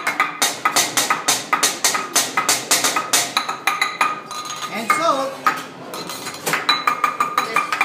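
Teppanyaki chef's metal spatula clanging in a quick rhythm against a metal seasoning shaker and the steel griddle: ringing metallic clicks about four times a second, thinning out briefly a little past the middle.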